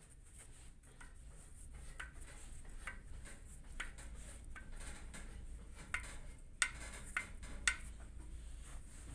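Skoda Fabia 1.4 engine running with a low hum and sharp metallic knocks standing out now and then, the two loudest about two-thirds of the way through. The knock is piston slap, heard most when the engine is cold and quietening as it warms up.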